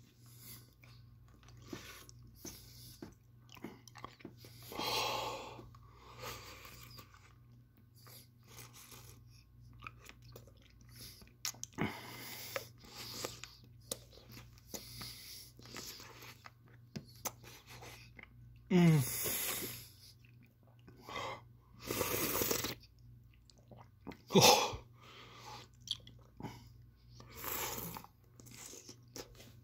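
Wet sucking and clicking mouth noises from a man holding the Toe of Satan superhot lollipop in his mouth, broken by several short, sharp breaths through the mouth, among them a brief falling groan about two-thirds of the way through, as he fights the burn of the extreme capsaicin heat.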